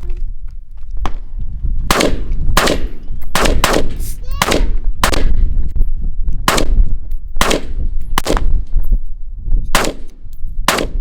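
AR-15-style rifle firing a string of about a dozen rapid semi-automatic shots, unevenly spaced, each followed by a short ring.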